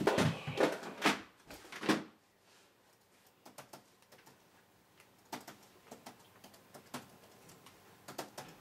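A few loud thumps in the first two seconds, then, after a short quiet gap, light irregular clicks of keys being typed on a laptop keyboard.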